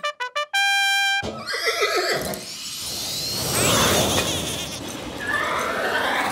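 Cartoon sound effects: a small horn tooted, a few short blips and then one held note, which wakes a robot pony. This is followed by a horse whinny and a long rushing whoosh that builds as the pony jets away.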